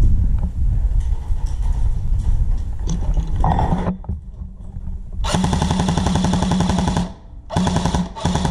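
Airsoft electric rifle (AEG) firing on full auto: a short burst, then a long burst of nearly two seconds, then two quick short bursts near the end, each a fast mechanical rattle over the gearbox's whine. Before the shooting there is rumbling handling and wind noise on the microphone.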